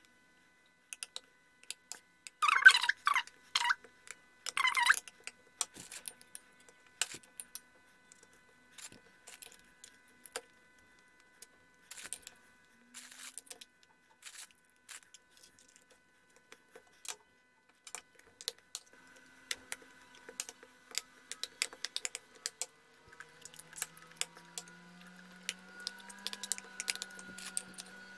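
Light clicks and taps of biscuits being laid into a metal loaf pan and pressed into a chocolate layer, with a few louder metallic clinks against the pan a few seconds in.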